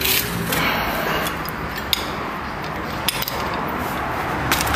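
Metal hand tools clinking as a long breaker bar and sockets are handled and picked up off the floor, a few sharp clinks, two close together about three seconds in and two more near the end, over steady rustling handling noise.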